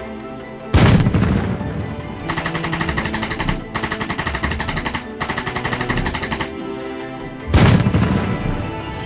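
Rapid automatic gunfire in three bursts of about a second each, framed by two heavy booms with long ringing tails, one about a second in and one near the end.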